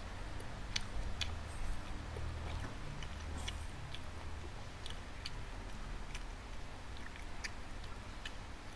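A person chewing a mouthful of food close to the microphone, with scattered wet mouth clicks about once or twice a second.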